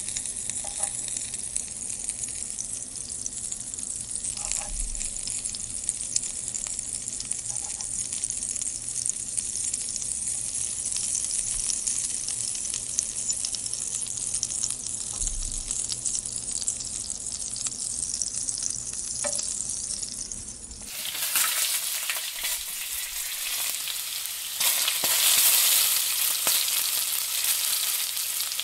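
Gram flour-coated green chilli rings sizzling in hot oil in a nonstick pan, stirred and scraped with a wooden spatula. About two-thirds of the way through, the sizzle turns suddenly louder and brighter.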